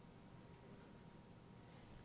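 Near silence: faint room tone with a light hiss.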